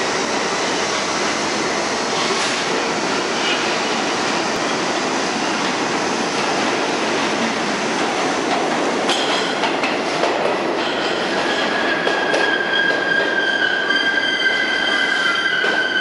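R46 subway train rolling into an underground station with a steady rumble of wheels on rail. From about eleven seconds in, a high squeal of several steady tones at once rises over the rumble as the train slows alongside the platform.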